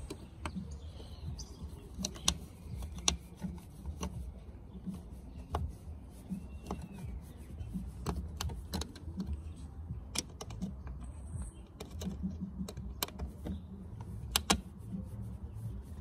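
Irregular small clicks and taps of hands and a small tool working on the plastic side-mirror housing of a VW Golf MK5 GTI, with a steady low rumble underneath.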